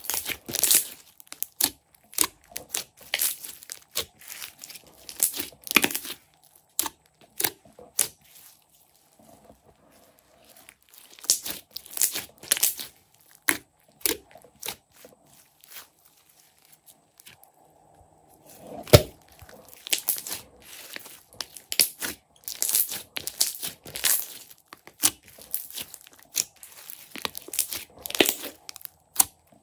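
Glossy slime being squeezed, pressed and poked by hand, making quick irregular sticky clicks and crackling pops. The crackling falls quiet twice for a couple of seconds, about a third of the way in and again just past the middle.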